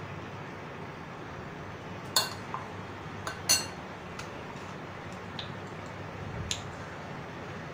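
A stainless-steel spoon clinking against a glass mixing bowl: two sharp ringing clinks about a second apart, then a few lighter taps, over a steady low hum.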